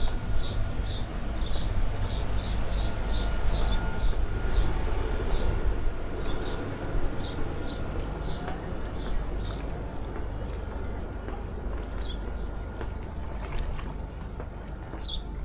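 Outdoor ambience: a steady low rumble with a bird chirping over it, short high chirps about two a second that fade out about halfway through.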